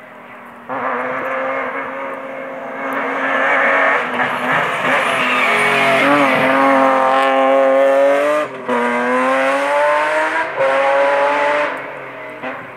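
BMW E36 3 Series rally car's engine running hard through a hairpin. The note dips about halfway through, then climbs twice with a short break at each upshift, and fades near the end.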